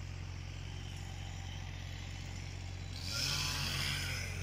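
A steady, low engine drone. About three seconds in, a louder rushing noise rises over it.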